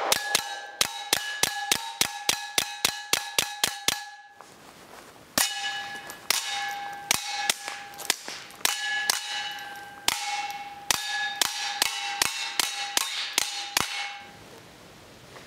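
Kel-Tec P17 .22 LR pistol fired suppressed in rapid strings: a fast run of about five shots a second, a short break about four seconds in, then a slower, uneven string. A steady ringing tone carries between the shots.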